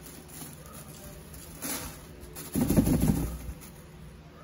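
Plastic bin liner rustling while a cordless vacuum's dust cup and filter are handled and shaken out over it: a short rustle, then a louder low rustling handling noise about two and a half seconds in that lasts about a second.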